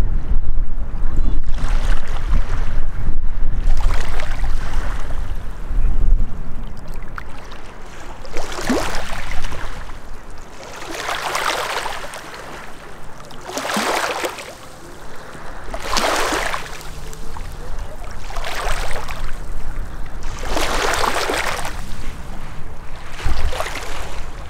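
Small waves lapping on a sandy, rocky lake shore, a soft wash every two to three seconds. Wind rumbles on the microphone in the first few seconds and again near the end.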